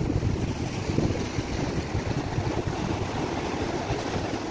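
Wind buffeting the microphone over the steady wash of rough surf breaking on the shore.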